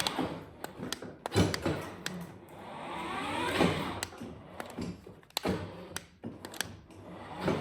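The electric drive motors and gearboxes of a 24-volt kids' ride-on truck whining as it pulls away and slows, the whine rising in pitch and then dropping about three to four seconds in and starting to rise again near the end, with scattered clicks and knocks.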